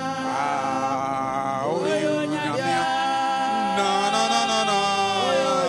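A man singing a slow, drawn-out worship chant through a microphone and PA, holding long notes and sliding between pitches.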